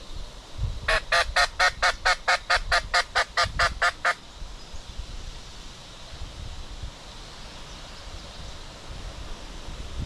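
Turkey yelping: a loud run of about fifteen even, evenly spaced yelps at about five a second, lasting some three seconds, then it stops. Wind rumble on the microphone runs underneath.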